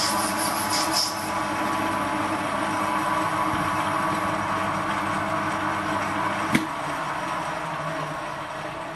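Small CQ9325 bench lathe running while turning brass, a steady motor hum with a scratchy cutting hiss in the first second. A sharp click comes about two-thirds of the way through, after which the running sound slowly fades.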